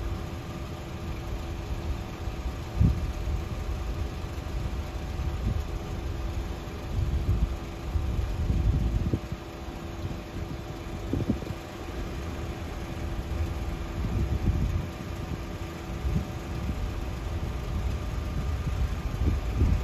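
Wind buffeting the microphone in irregular low gusts, over a steady mechanical hum from the passing lake freighter's machinery.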